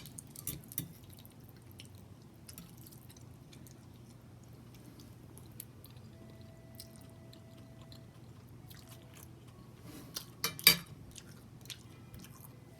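Quiet chewing and small mouth clicks of someone eating pasta and fried chicken, with a brief, much louder burst of sharp clicks about ten and a half seconds in.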